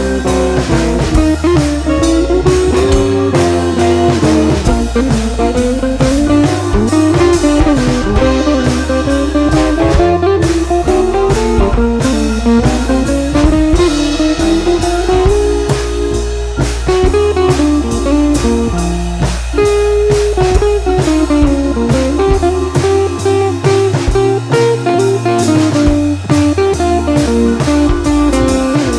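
Background music: guitar-led, blues-style instrumental with drums keeping a steady beat.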